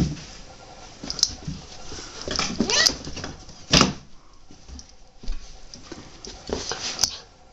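A Welsh Sheepdog and a cat play-fighting on a carpet: a handful of short, sudden scuffling noises, the loudest a little under four seconds in.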